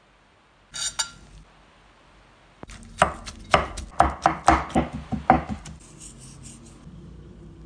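Large kitchen knife chopping grilled mushrooms, roasted tomatoes and parsley on a wooden end-grain cutting board: a run of about a dozen sharp chops, three to four a second, starting about three seconds in. A short crackle comes about a second in, and faint scraping follows the chopping.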